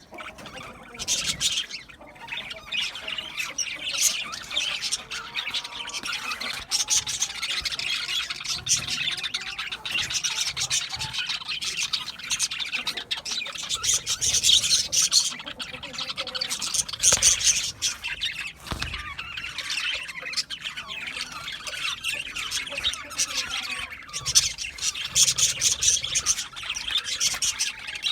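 A flock of budgerigars chattering and chirping, with squawks mixed in and no break.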